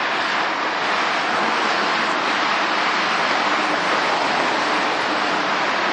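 Steady, even noise of multi-lane freeway traffic passing below, tyres and engines blending into one continuous wash.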